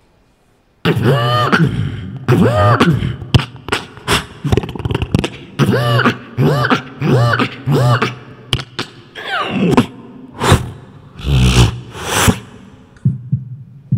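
Human beatboxing into a handheld microphone: sharp kick and snare hits mixed with repeated vocal bass sweeps that rise and fall in pitch, starting about a second in after a brief silence.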